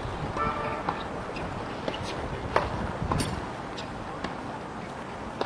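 Outdoor background noise with a steady hiss of distant traffic, a short horn-like toot about half a second in, and scattered sharp taps, several about half a second apart, in the middle.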